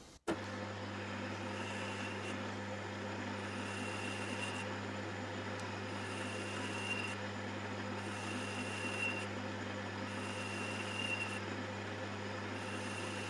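Metal lathe running steadily, counterboring an aluminium dust cap with a small-radius insert tool. There is a constant low hum, and a faint high tone comes and goes about every two seconds.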